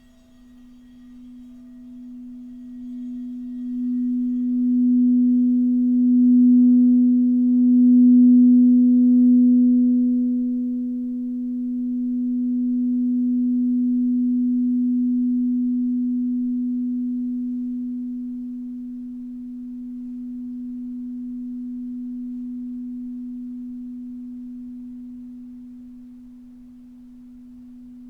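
A singing bowl held at one steady low tone. It swells with a slight wavering over the first several seconds, as when the rim is rubbed, then fades slowly while still ringing. Fainter higher ringing dies away early on.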